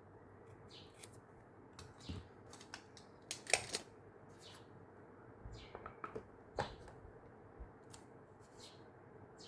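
Washi tape and paper being handled on a desk: scattered small clicks and rustles, with a louder crackly rustle about three and a half seconds in.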